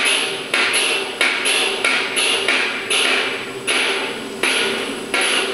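Hammer blows on wood and on metal, played back from two looping videos through screen speakers: a steady run of sharp knocks, about two a second, the two hammers overlapping in a slightly uneven rhythm.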